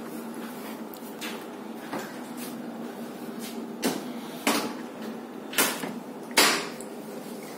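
A door being handled: about half a dozen knocks and clicks at uneven intervals, the loudest about six and a half seconds in, over a steady background hum.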